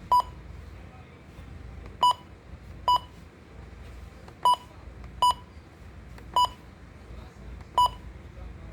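Midland WR-120DSP weather alert radio giving seven short, high electronic beeps at uneven intervals.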